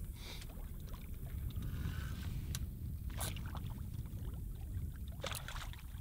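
Steady low rumble of water and wind around a small boat, with three short sharp noises about two and a half, three and five seconds in.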